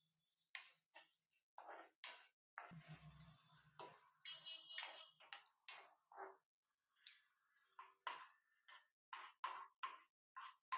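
Steel spoon scraping and knocking against a nonstick frying pan while stirring chopped onions in oil: short strokes about two a second, with a pause a little past the middle.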